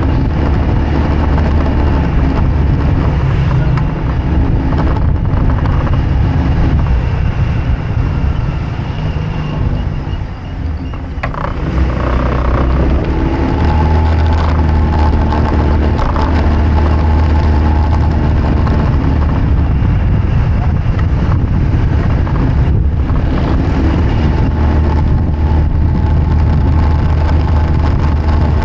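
Vehicle engine running while driving along a street, mixed with wind and road noise on the microphone. The engine note eases off around ten seconds in, then picks up again and holds steady.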